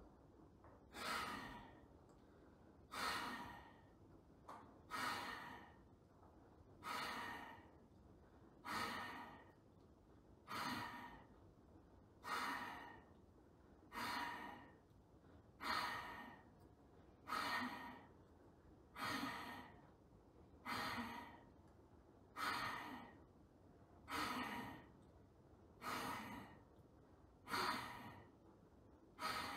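Bhastrika (bellows breath) pranayama: forceful breaths in a steady rhythm, one sharp rush of air about every two seconds, each starting abruptly and fading away.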